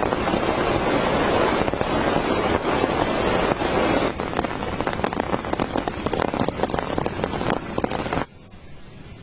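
Heavy rain falling, with many separate drop hits heard from about halfway through. It cuts off abruptly near the end, leaving a quieter hiss.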